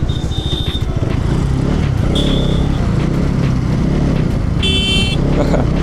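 Bajaj Pulsar RS200's single-cylinder engine running steadily under way in traffic, with road noise. Short high beeps sound twice early on, and a vehicle horn honks for about half a second near the end.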